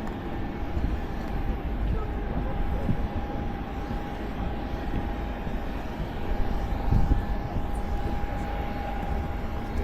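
Jet airliner engines running, a steady high whine over a low rumble.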